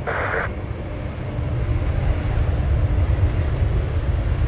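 Low rumble of a jet airliner's engines, growing steadily louder from about a second in.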